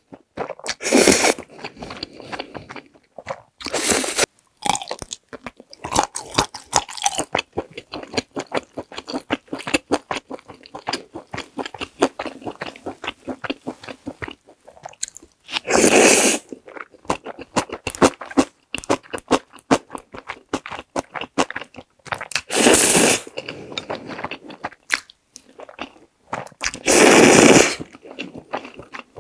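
Close-miked mukbang eating: a person slurping black bean sauce (jjajang) instant noodles in several loud slurps of about a second each, with steady wet chewing and lip smacks in between.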